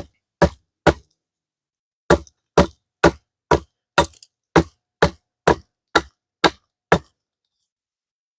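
An old axe, freshly sharpened on a cinderblock, chopping into wood with sharp, separate strikes: three, a short pause, then about eleven more at roughly two a second.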